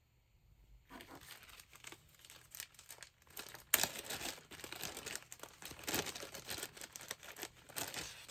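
Crinkly packaging being handled and unwrapped by hand, a continuous crackling and rustling that starts about a second in, with its sharpest crackle about four seconds in.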